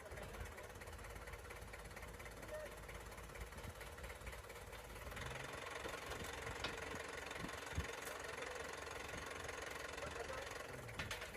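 An engine running steadily with a low rumble, a faint steady hum and a few light clicks.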